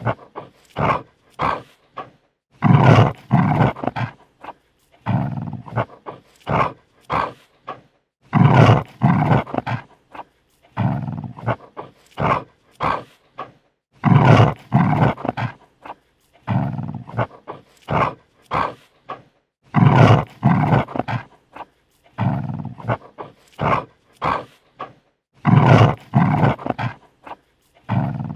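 A dog snarling defensively, in repeated long rough growls every five or six seconds with short snaps and huffs between them.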